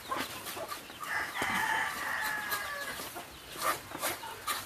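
A rooster crowing once, one long call of about two seconds starting about a second in. Around it come short scraping strokes of a blade scraping the hair off a scalded pig's skin.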